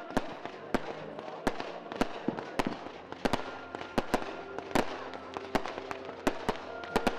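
Fireworks display: a rapid, irregular series of sharp bangs, about two to three a second, over a steady crackling haze.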